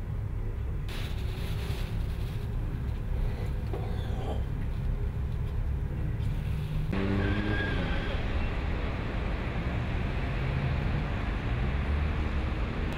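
City road traffic: cars and taxis driving along a street, a steady low rumble of engines and tyres. The sound changes abruptly about seven seconds in and becomes fuller and brighter.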